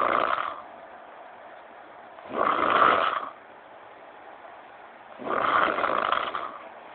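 A person snoring in slow, regular breaths. One snore is ending just after the start, then two more follow, each about a second long and roughly three seconds apart.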